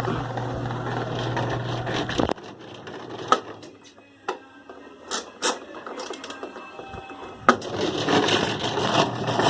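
Kenmore 70 Series direct-drive washing machine running with a steady hum and noise. It stops abruptly about two seconds in, a few sharp clicks follow, and the running noise starts again near the end. This is the noise the repairman is tracing, which he suspects comes from worn agitator dogs or the water pump.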